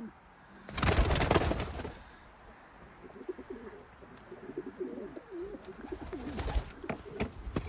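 Domestic homing pigeons cooing, with wavering low calls running through the middle and later part. A loud brief rustle comes about a second in, and a few short knocks come near the end.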